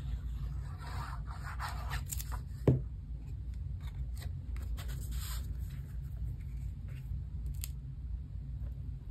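Tape runner rolling adhesive onto the back of a piece of cardstock in short scratchy strokes, with one sharp knock a little under three seconds in, the loudest sound. Later come brief rasps and rustles of paper as the piece is handled and pressed onto the card base, over a steady low hum.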